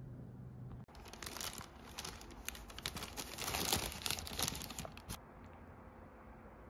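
Plastic takeaway wrapping crinkling and rustling as a lidded soup bowl is unwrapped, a dense run of crackles lasting about four seconds before it stops.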